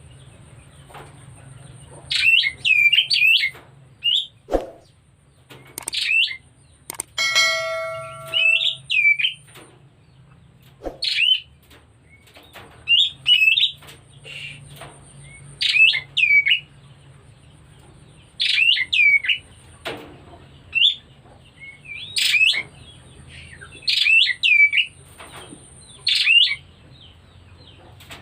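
Oriental magpie-robin (kacer) calling repeatedly: short, sharp hooked notes in quick clusters of two to four, every couple of seconds. The keeper takes this calling as a sign the bird is coming into breeding condition.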